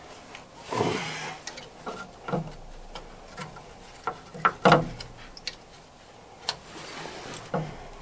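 Scattered knocks, clunks and a short scrape as a jammed air intake tube is twisted and worked loose by hand among the engine parts. The loudest are two quick knocks about halfway through.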